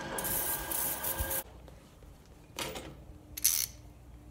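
Aerosol spray can hissing steadily as it sprays the mower engine's throttle and governor linkage, cutting off about a second and a half in; two brief hisses follow.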